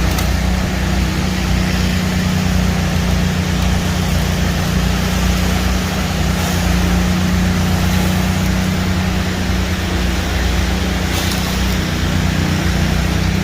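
Concrete pump truck's diesel engine running steadily at a constant speed, a continuous low drone.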